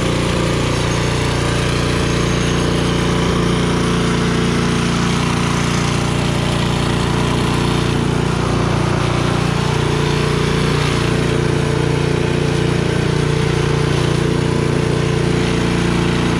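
Single-stage snowblower's small gas engine running steadily at an even speed, warmed up and no longer surging.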